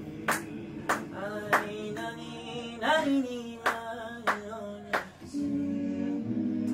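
A cappella male vocal group singing: sustained low humming chords carry a lead voice that bends up and down. Sharp percussive clicks come at irregular intervals about every half second to second.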